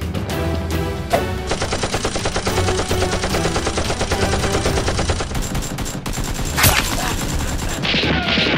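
Rapid, sustained automatic-gunfire sound effect over background action music, then a single louder shot about seven seconds in and a few falling whistles near the end.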